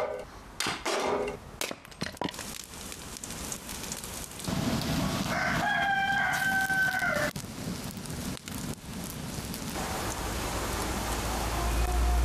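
A rooster crows once, a single long call of about two and a half seconds starting about four and a half seconds in. A few sharp knocks come before it, and after it a wood fire crackles and hisses, with a low rumble building near the end.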